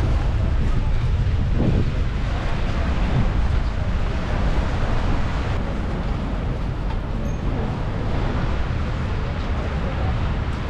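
Busy city street noise: a steady low rumble of passing traffic mixed with wind on the microphone.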